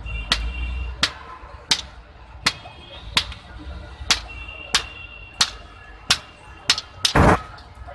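Hand hammer striking a red-hot steel boti blade on a small anvil, a steady beat of about one and a half blows a second, several with a brief metallic ring. Near the end comes one louder, longer crash.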